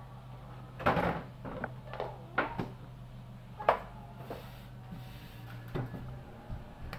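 A series of sharp knocks and clatters of objects being handled and set down on a hard surface, about six in all, over a steady low hum.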